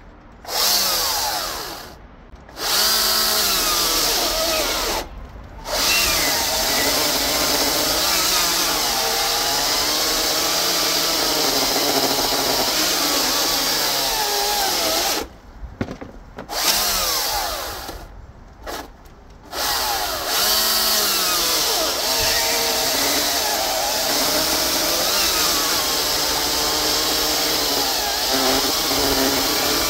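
Greenworks 82CS34 82-volt cordless chainsaw cutting through a red oak log, its electric motor's pitch sagging and recovering as the chain is leaned into the wood. The trigger is let off and pulled again a few times in the first twenty seconds, then the saw runs steadily through the cut.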